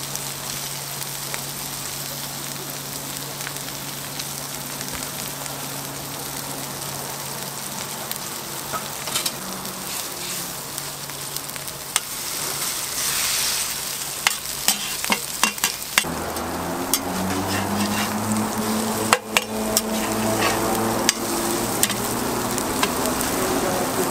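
Eggs, cheese and ham sizzling on a flat steel griddle, with a slotted metal spatula clicking and scraping on the griddle from about halfway.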